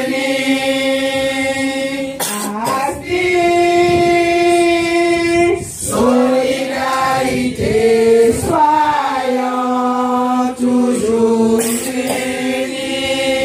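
A group of women singing together, holding long notes that step from pitch to pitch, with no instruments or beat heard.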